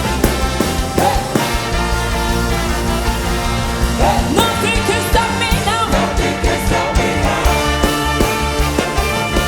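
Music with a steady beat and some singing.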